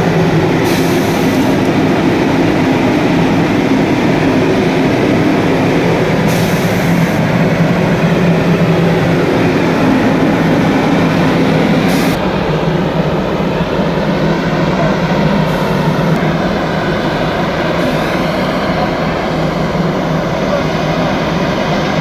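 Steady, loud engine rumble with a low hum over dense background noise, changing abruptly about halfway through.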